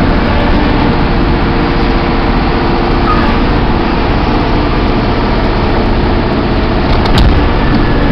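Caterpillar 5130B hydraulic mining shovel's diesel engine running loud and steady. There is a short knock about seven seconds in.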